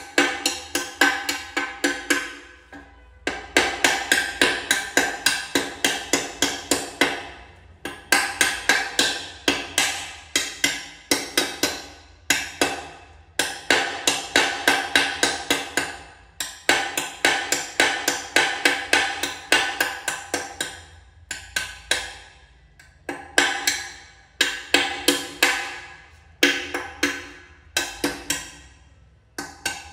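Rapid tapping on floor tiles, about five taps a second in bursts of a few seconds with short breaks in between. Each tap rings with the same clear pitched tone.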